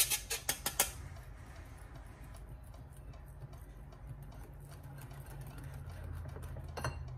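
Hand-operated metal flour sifter clicking rapidly, about five clicks a second, as rice flour is sifted. The clicking stops about a second in, leaving a low steady hum with faint ticks, and a few clicks return near the end.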